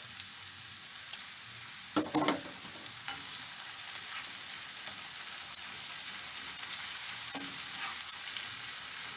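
Diced onions, carrots and garlic sizzling in oil in a non-stick granite frying pan, stirred with a spatula. The spatula scrapes the pan throughout and knocks against it sharply about two seconds in, with a lighter knock later.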